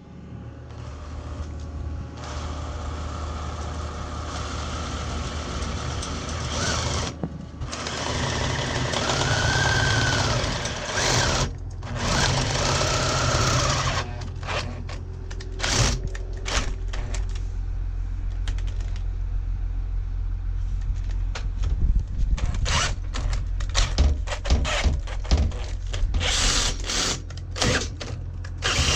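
Power tool cutting into the boat's steel, with metal swarf coming off. It runs steadily for about the first fourteen seconds, then goes in short stop-start spurts with sharp clicks and knocks.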